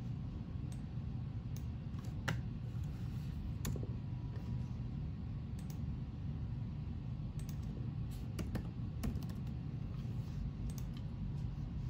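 Keys tapped on an HP laptop keyboard: scattered single clicks, then a quick run of keystrokes about eight seconds in, over a steady low hum.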